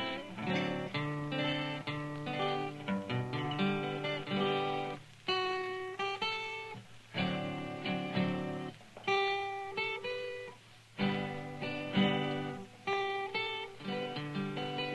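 Solo acoustic guitar playing a tune, single notes and chords plucked one after another, each ringing and fading before the next.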